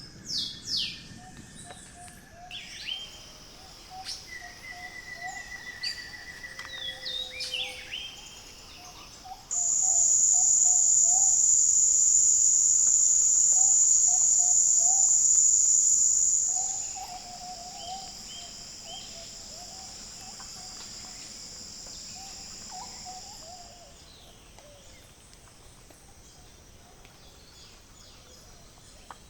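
Birds calling with short chirps and whistles, then a loud, steady, high-pitched insect buzz that starts abruptly about a third of the way in. After about seven seconds it gives way to a quieter steady insect drone that fades out well before the end.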